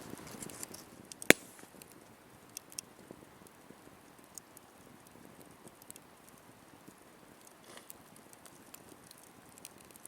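Wood fire crackling: sparse ticks and small pops, with one sharp, loud pop about a second in.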